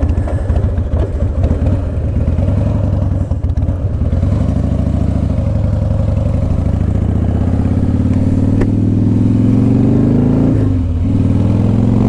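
2004 Harley-Davidson Fat Boy's V-twin running at low revs with an uneven beat, then pulling away. The pitch rises from about eight seconds in, dips briefly at a gear change near eleven seconds, and rises again.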